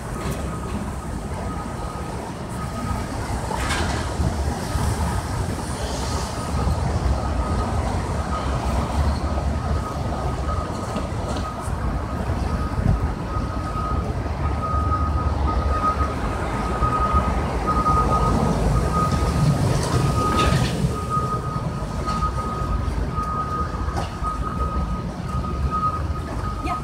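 City street traffic: a steady low rumble of engines and tyres, with a thin, high, faintly pulsing electronic tone over it. A louder rush of noise comes about four seconds in and again about twenty seconds in.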